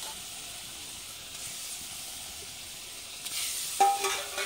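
Fish pieces in masala gravy sizzling in a kadai, a steady hiss. Near the end comes a sudden sharp clink with a brief ringing tone.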